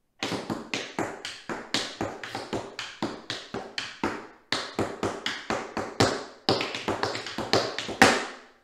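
Tap shoes striking a hard floor in a quick tap-dance routine, a rapid run of sharp taps. There is a brief break about four and a half seconds in, and the routine ends with one loud closing stamp near the end.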